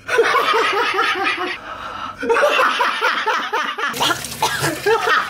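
A man laughing in a long run of quick, repeated bursts. About four seconds in, a tap starts running into a stainless steel sink.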